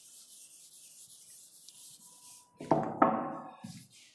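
Board duster rubbing across a chalkboard, a faint, steady, hissing wipe as the board is erased; about two and a half seconds in, a few louder, sharper strokes of chalk on the board.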